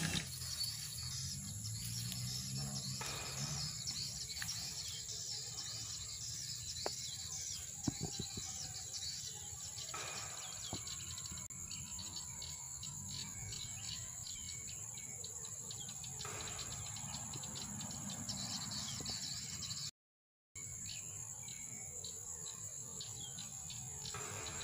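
Birds chirping in the scrub over a steady high insect drone. The sound cuts out completely for about half a second near the end.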